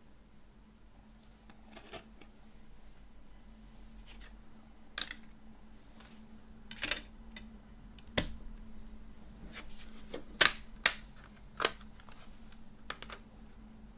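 Plastic clicks and snaps of a CD jewel case being handled: the disc pressed back onto the case's hub and the case shut. There are about a dozen sharp clicks, one duller knock a little past the middle, and the three loudest snaps close together after it.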